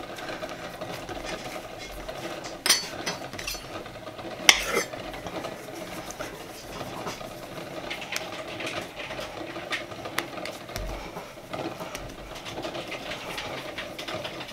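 Dough being cut off and rolled into balls by hand on a countertop, with soft handling sounds over a faint steady hum and two sharp knocks, about three and four and a half seconds in.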